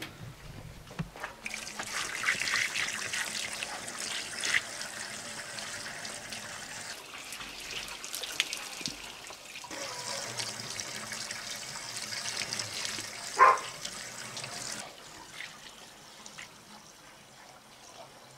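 Water pouring in a steady stream from a plastic bucket into the radiator filler of a UTB 650 tractor, splashing into the filler neck. There is one brief knock about two-thirds of the way through, and the pour eases off near the end.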